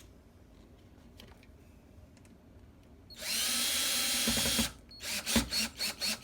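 Power drill driving a wood screw through lattice: the motor runs steadily for about a second and a half, then stutters in quick repeated bursts, about four or five a second, as the screw is driven home.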